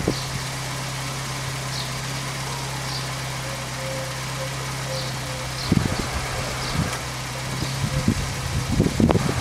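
Citroën DS four-cylinder engine idling steadily, keeping its engine-driven hydraulic pump running for the self-levelling suspension. A few low knocks come about six seconds in and again near the end.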